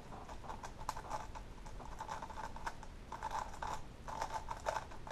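Plastic 3x3 speedcube being turned fast in the hands: rapid, irregular clicking and clacking of the layers. The cube is loosely tensioned and feels too flimsy.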